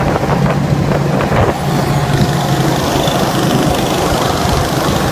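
Go-kart engines running, a steady engine hum under a loud rushing noise, with wind rumbling on the microphone.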